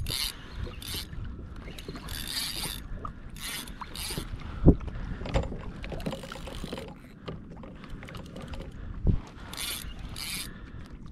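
A spinning fishing reel working against a hooked fish, its drag and gears running in short spells of mechanical buzzing. A few sharp knocks come in between, the loudest about five seconds in.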